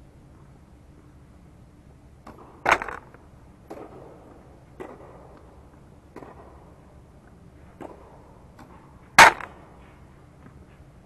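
Tennis ball being struck by rackets and bouncing on the court during a rally: a run of sharp pops about a second or so apart, with two much louder hits about three seconds in and near the end, each echoing briefly under the dome.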